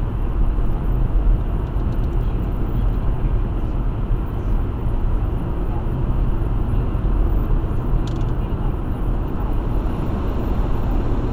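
Steady road and engine noise inside the cabin of a moving car, the tyres' drone heaviest in the low end.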